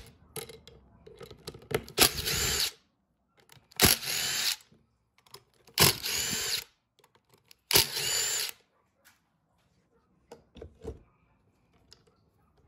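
Impact driver running in four short bursts about two seconds apart, backing out the bolts of a Honda K-series oil pump housing. A few light clicks follow near the end.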